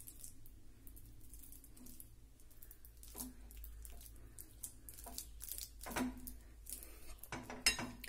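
Boiled nendran banana being mashed with a silicone spatula in a ceramic bowl: faint squishing and scraping, with a few sharper knocks of the spatula against the bowl.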